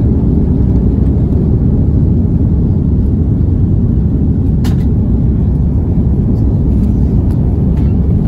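Jet airliner at takeoff thrust heard from inside the cabin: a loud, steady, deep rumble of engines and airflow through the take-off roll and lift-off, with one sharp click about four and a half seconds in.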